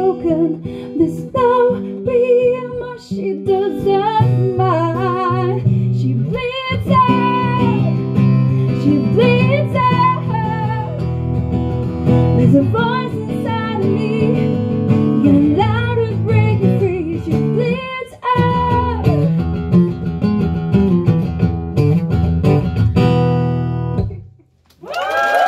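A woman singing with a wavering vibrato over a strummed steel-string acoustic guitar, the song ending about a second before the end. Applause breaks out right after the final chord.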